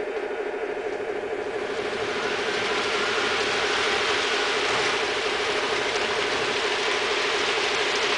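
Model train running on the layout: locomotive motors and gearing whirring, with wheels rolling on the track, growing louder about two seconds in as the train approaches.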